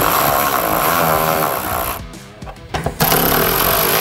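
Cordless electric ratchet with a half-inch socket running in two bursts of about two seconds each, with a short break about halfway, as it backs off bolts at the truck's hood hinge.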